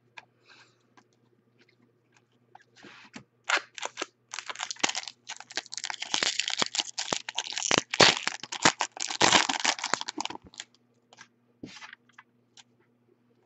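Foil wrapper of a Bowman Chrome baseball card pack crinkling and tearing as it is opened, a burst of crackling that builds about three seconds in, is loudest near the middle and dies away to a few small clicks near the end.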